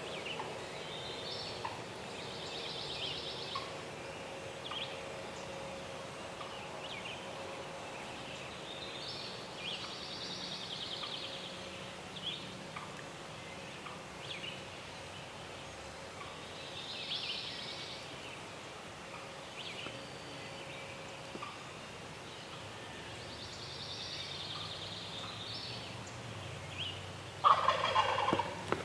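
Wild turkey gobbler gobbling from far off, a rattling gobble repeated about every seven seconds. A louder, brief burst comes near the end.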